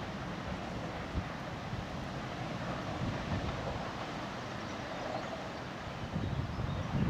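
Wind buffeting the microphone in uneven gusts over a steady distant rumble of a diesel locomotive.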